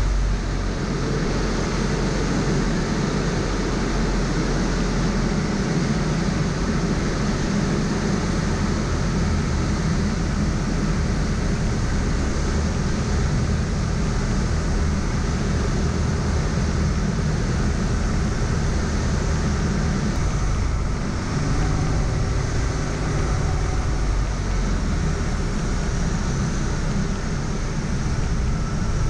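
Single-engine propeller aircraft's engine and propeller running steadily with airflow noise, heard from inside the cockpit, on final approach through touchdown.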